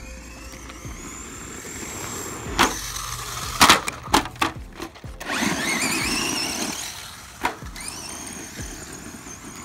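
Electric RC monster truck's motor whining and rising in pitch as it accelerates, with several sharp knocks of the truck landing and bouncing on hard dirt a quarter to halfway in, the loudest near the middle. A second rising whine follows, then one more knock near the end.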